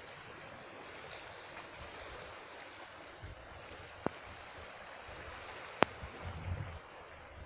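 Steady hiss of wind and calm sea water at a rocky shore, with low gusts of wind buffeting the microphone near the end. Two sharp clicks cut through it, one a little past halfway and a louder one about a second and a half later.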